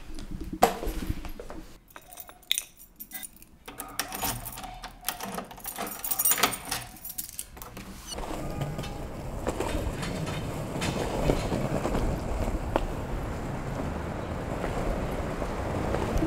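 Keys jangling and a door being handled, with sharp clicks and rattles. About halfway through, a steady rumble of skateboard wheels rolling on street pavement sets in, with a few ticks over joints in the pavement.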